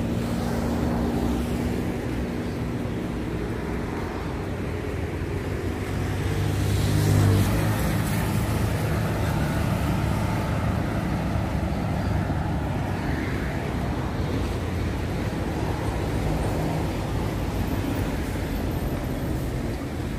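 Road traffic on a city avenue: a steady hum of passing cars, with one vehicle passing louder about seven seconds in.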